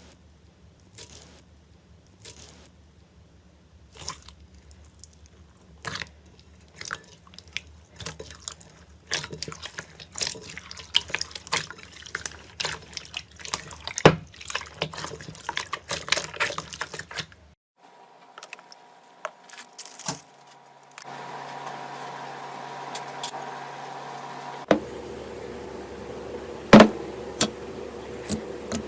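Hands playing with slime: squishing, poking and stretching it into a run of sticky wet clicks, crackles and pops, thickest in the middle. Later a faint steady hum sits under a few sharper pops.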